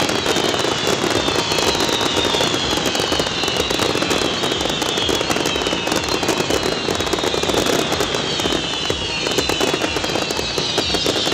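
Fireworks display finale: a continuous dense barrage of crackling and bangs from many shells and fountains going off at once, with a run of high tones that fall in pitch, about one a second.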